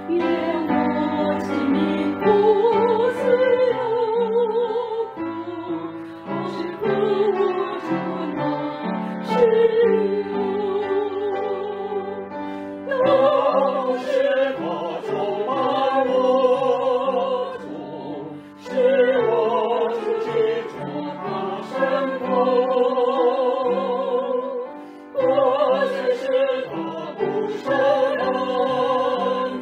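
A Mandarin worship song sung with heavy vibrato over an instrumental accompaniment. The singing comes in phrases several seconds long, with short breaths between them.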